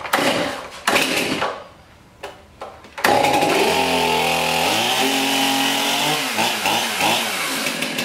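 A new Stihl MS 271 two-stroke chainsaw being pull-started. It catches suddenly about three seconds in, then runs with the revs rising and falling.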